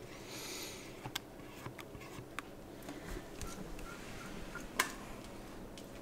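Quiet kitchen handling while a thick ice cream base is poured from a stainless steel mixing bowl into a metal loaf tin: a soft hiss, then a scatter of light clicks and taps, the sharpest near the end.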